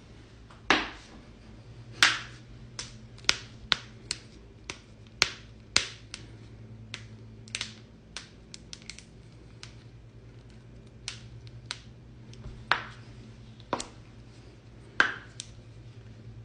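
Joints cracking: about two dozen sharp pops at irregular intervals, a few much louder than the rest, over a faint steady low hum.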